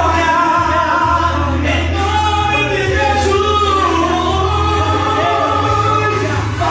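Gospel worship music: voices singing together over a sustained bass accompaniment.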